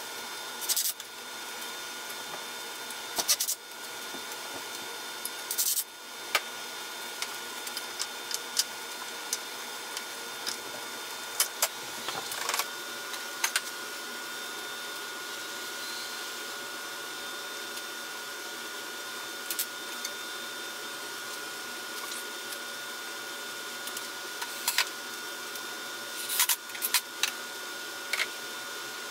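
A steady mechanical hum throughout, with scattered short knocks and clicks from a pine cabinet being handled and fastened with a cordless drill. The clicks cluster about a second in, near three and six seconds, around twelve to thirteen seconds, and again near the end.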